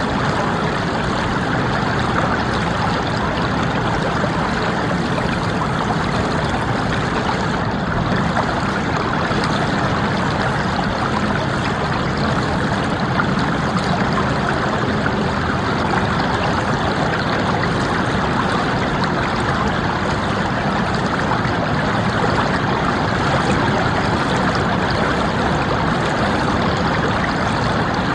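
Small stream babbling and bubbling steadily over stones.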